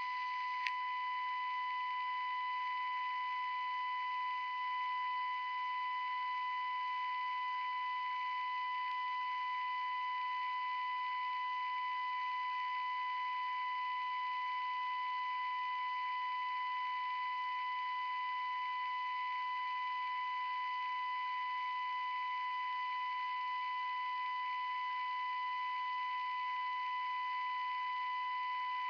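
A steady, high-pitched electronic test tone held without change over faint hiss. It starts abruptly, with a single click about a second in.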